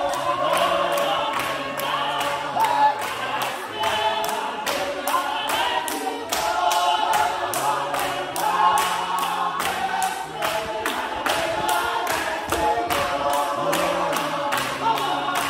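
A congregation singing a lively hymn together, with a steady beat of hand claps about three times a second.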